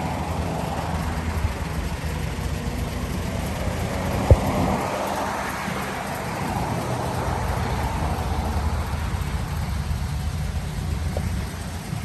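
Air-cooled Volkswagen bus engine idling steadily, a low pulsing rumble. A single sharp click comes a little after four seconds in.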